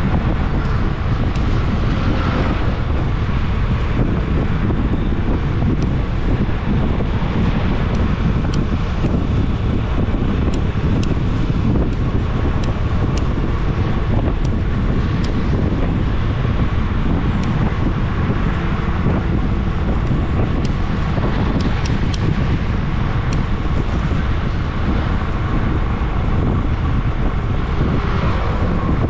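Wind noise on the microphone over the steady hum and road noise of a vehicle travelling along a road at an even pace, with a faint steady tone through it.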